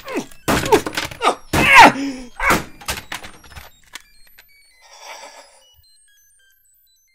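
A person's voice in short, loud utterances, each falling in pitch, over the first three and a half seconds, then a brief hiss about five seconds in, and silence for the last second or so.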